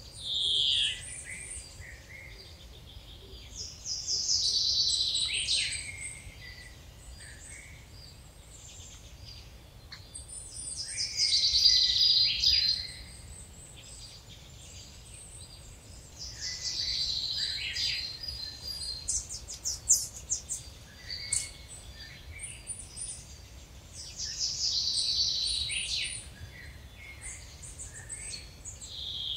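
Woodland songbirds singing. One bird repeats a loud song phrase of about two seconds, falling in pitch towards its end, every six or seven seconds, with thin high notes from other birds in between.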